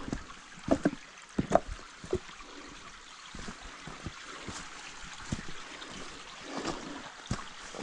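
Footsteps of a walker on a woodland path: a run of irregular, uneven steps, heaviest in the first couple of seconds, over a faint steady outdoor hiss.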